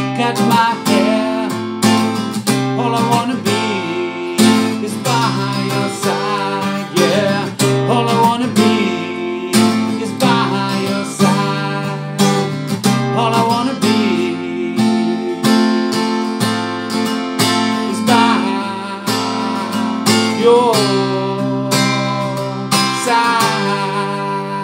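Steel-string acoustic guitar strummed in steady chords, with a man's voice singing along over it. Near the end the strumming stops and the last chord fades away.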